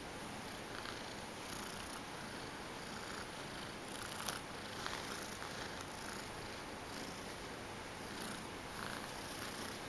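Young gray tabby cat purring steadily while being stroked.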